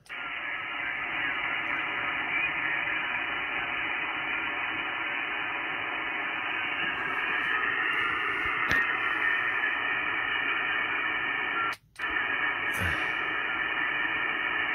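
Icom IC-7300 transceiver receiving on the 20-meter band through its SP-38 speaker: a steady hiss of band noise and static, cut off above the voice range as in a sideband receiver, while no station answers the call. It cuts out briefly about twelve seconds in.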